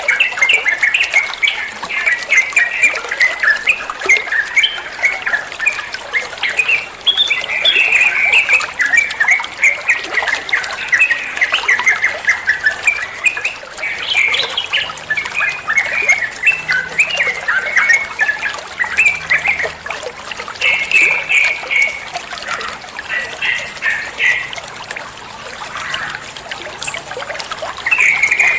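Yellow-vented bulbul (trucukan) singing: a continuous run of rapid, chattering notes.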